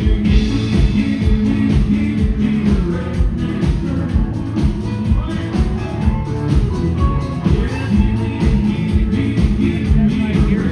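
Live country band playing a song with a steady drum beat and no words heard.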